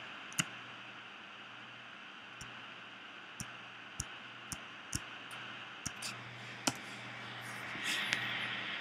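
Scattered sharp clicks of a computer mouse and keyboard, about ten in all at irregular intervals, over a steady faint hiss and low hum.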